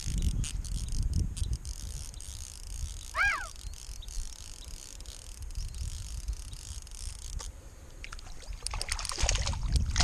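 Wind rumble on the microphone, a single short chirp that rises and falls in pitch about three seconds in, and a quick run of sharp clicks near the end.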